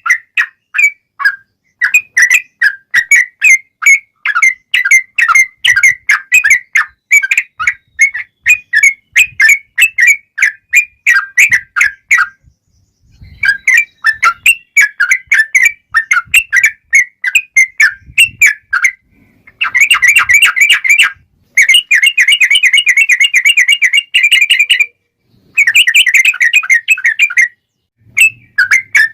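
Yellow-vented bulbul song: loud, rapid runs of short bubbly whistled notes broken by brief pauses. From about two-thirds of the way in come denser rolling trills in bursts of a few seconds each.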